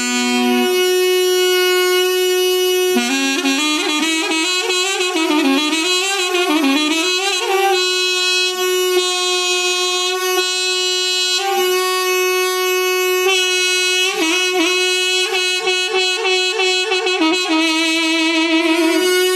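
Music: a wind instrument playing a fast, heavily ornamented melody with trills over a steady held drone note.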